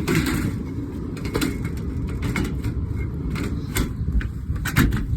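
Air filters being handled in a package unit's filter rack: several scattered knocks and rattles over a steady low rumble.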